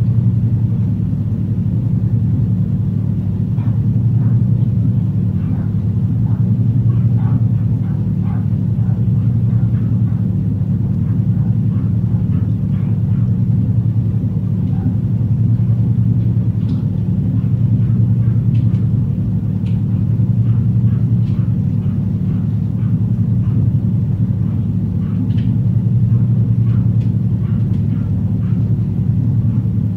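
Electrical appliance noise: a steady low hum that swells slightly every few seconds, with faint scattered clicks over it.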